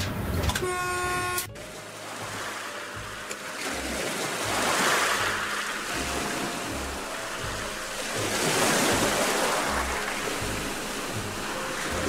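A short train horn blast that cuts off sharply about a second and a half in, then sea waves breaking in slow swells over background music with a soft low beat.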